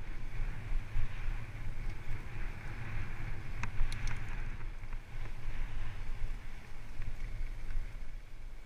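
Wind buffeting the microphone of a camera on a Salsa Mukluk fat bike riding along a narrow dirt path, with steady rolling noise from the bike and a few sharp clicks about halfway through.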